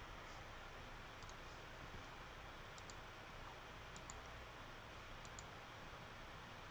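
A few faint, short clicks at a computer, mostly in close pairs, over a steady low hiss of room tone.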